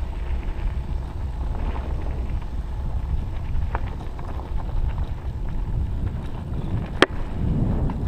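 Mountain bike rolling downhill over a gravel and dirt track: a steady low rumble of wind on the microphone and tyre noise, with small rattles and clicks from the bike. One sharp clack about seven seconds in.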